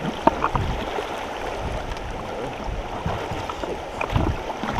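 Creek water rushing steadily around a kayak, with a few light knocks.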